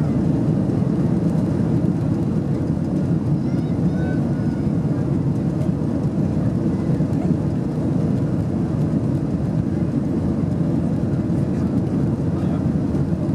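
Steady low rumble inside the cabin of an Airbus A330-200 taxiing, its engines running at low power.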